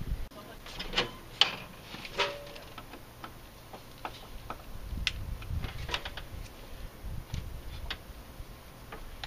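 Irregular clicks and light knocks of hands and a screwdriver working on the plastic intake tube and a small rubber hose, with the sharper clicks bunched in the first couple of seconds.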